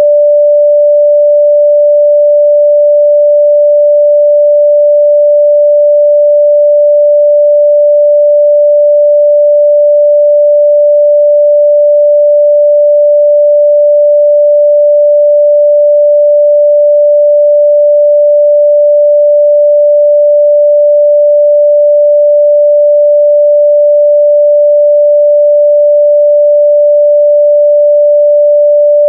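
A pure 588 Hz sine-wave test tone, held steady and loud at one unchanging pitch.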